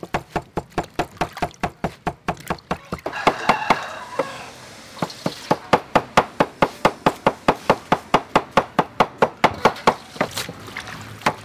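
Cleaver mincing chili and garlic on a wooden cutting board: quick, even chops at about five a second. They pause for about two seconds about three seconds in, then start again.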